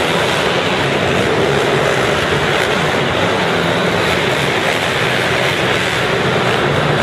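Small four-stroke mini motocross bike engines running on the throttle around the track, a steady engine noise with no pauses.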